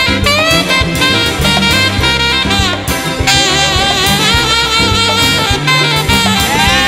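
A large folk big band playing an instrumental passage: a reed instrument's lead melody over bass and hand percussion. About halfway through, a brighter, louder lead line comes in with bending pitch.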